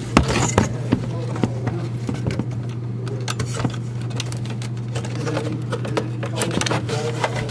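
A plastic bill-validator cash box being handled and opened, with clicks of its plastic parts and the rustle of dollar bills being pulled from it. A steady low hum runs underneath.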